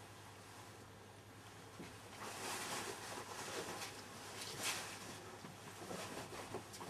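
Low steady hum with scattered rustling and light clicks, growing busier about two seconds in.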